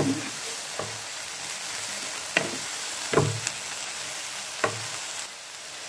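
Soya chunks sizzling in a frying pan as a spatula stirs them, knocking and scraping against the pan several times.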